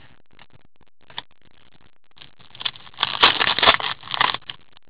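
Trading cards being slid and shuffled against one another in cotton-gloved hands: a faint click about a second in, then about two seconds of scraping and rustling in the second half.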